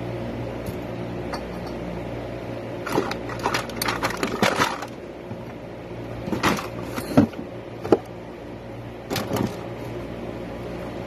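Electric fan running with a steady motor hum, interrupted by several short, louder noises: a cluster about three to five seconds in, then bursts around six and a half, seven, eight and nine seconds in.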